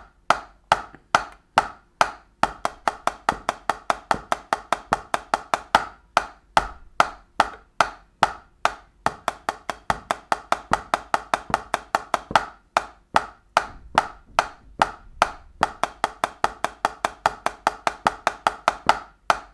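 Drumsticks playing slow, even single strokes, hand to hand, at about three and a half strokes a second. The strokes are dry and woody, and there is a brief pause every six seconds or so between repeats of a beginner singles exercise in groups of four and eight.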